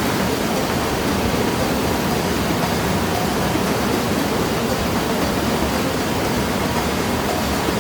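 Waterfall rushing steadily, an even wash of water noise with no change throughout.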